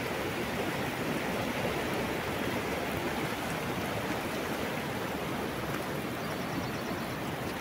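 Muddy, rain-swollen river rushing past in a steady, even wash of noise.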